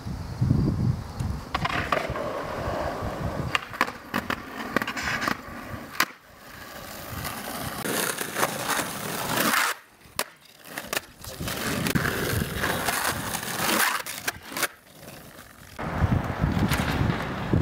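Skateboard wheels rolling on asphalt and concrete, with several sharp clacks of the board against the ground.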